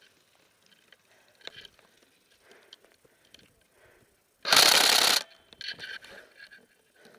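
An airsoft electric rifle firing one short full-auto burst, its gearbox cycling with a ratcheting mechanical buzz, lasting under a second about four and a half seconds in. Faint clicks and knocks of moving gear come before it.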